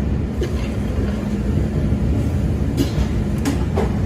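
Steady low mechanical drone of running equipment, with a few short clicks and taps about half a second in and again near the end.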